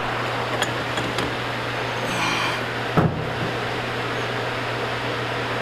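Pipe wrench working a gas line fitting: a few light metal clicks, a short scrape just after two seconds, and a sharp knock about three seconds in. Under it runs a steady low mechanical hum.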